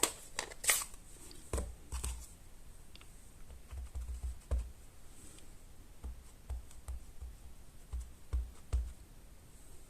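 Scattered light taps and clicks with soft knocks on a tabletop, several in quick succession about four seconds in and again near the end: a nest stamp being handled, inked on an ink pad and pressed onto paper.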